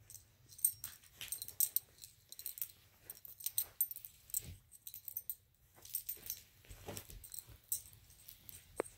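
Two Doberman pinschers play-mouthing and nibbling at each other: a busy, irregular run of small clicks, smacks and light jingles with soft rustling, and no barking.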